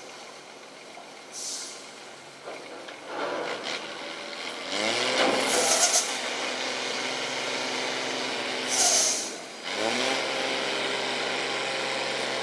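Diesel engine of a log-loaded tractor-trailer revving up under load twice, each time rising in pitch and then holding steady, with short sharp hisses of air from the truck's brakes about a second and a half in, near six seconds and near nine seconds.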